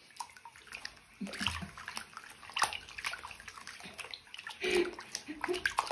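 Water sloshing and splashing in a filled sink as a cat paws and bats at it. The splashes are irregular and begin about a second in.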